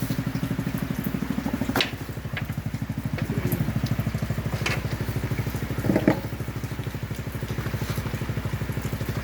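A small motor or engine running steadily with a fast, even pulsing beat, with a few sharp clicks and knocks over it, the loudest about six seconds in.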